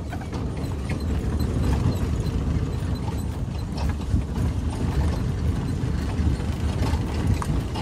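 Open-top safari jeep driving over a rough dirt track: a steady low rumble of engine, tyres and wind, with the open metal body and roll bars rattling and knocking irregularly over the bumps.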